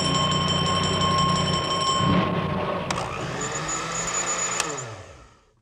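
Fire engine motor sound effect: a steady engine hum that winds down, falling in pitch and fading out as the engine comes to a stop. There is a sharp click about three seconds in and another just before the wind-down, and a high ringing note dies away about two seconds in.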